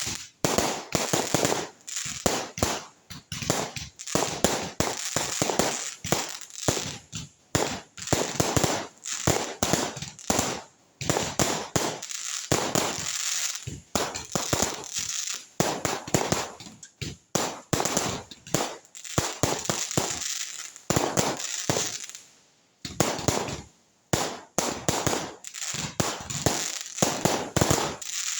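Fireworks going off in rapid succession: a dense, continuous run of sharp bangs and crackling pops, with a brief lull about twenty-two seconds in.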